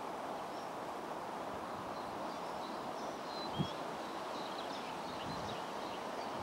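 Steady distant roar of the Class 52 'Western' diesel-hydraulic locomotive D1015, its twin Maybach diesel engines working as it approaches, with small birds chirping over it and one soft thump about three and a half seconds in.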